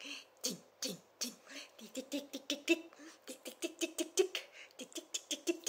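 A woman's voice chanting a rapid string of short repeated syllables like 'ding ding ding', in a quick even rhythm of about five to six a second, each with a sharp clicky onset.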